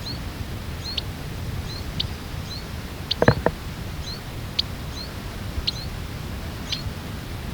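Short, high call notes from a small bird, the male parent near its just-fledged chick, repeated about once or twice a second: quick up-hooked notes alternating with sharp chips. Two knocks come a little after three seconds in, over a low steady rumble.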